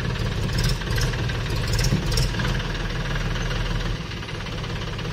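Red farm tractor's diesel engine idling steadily, with a few light clicks and clatter about half a second to two seconds in.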